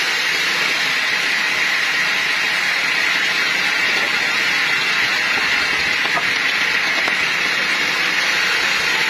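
Steady, loud hissing roar of sawmill machinery, unchanging throughout.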